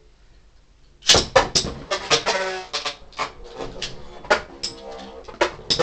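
Plastic-and-metal Beyblade spinning tops in a plastic stadium: about a second in comes a loud launch clatter as the second top drops in, then a rapid, irregular run of clicks and knocks as the tops spin, scrape and clash in the bowl.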